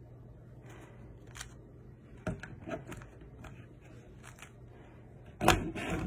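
Plastic Rubik's speed cube being turned by hand: scattered clicks of the layers turning, with a louder knock near the end.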